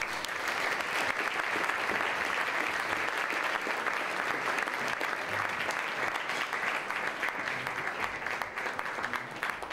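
Audience applauding: dense, steady clapping that begins at once and starts to break up into separate claps near the end.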